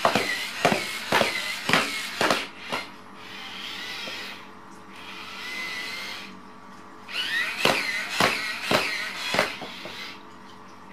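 Six-legged toy walking robot stepping across a hard floor: its motor whines and its legs clack about twice a second. For a few seconds in the middle the stepping stops and only a quieter whir is heard, then the clacking steps resume.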